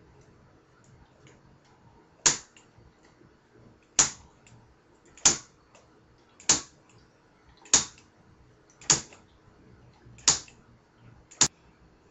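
Eight sharp, short clicks about a second and a quarter apart, starting about two seconds in: the spark igniter of a home-built HHO (oxyhydrogen) test rig being fired again and again by hand.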